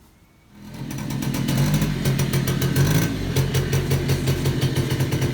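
A small single-cylinder engine comes in about half a second in, builds over a second and then runs steadily at idle with an even pulse.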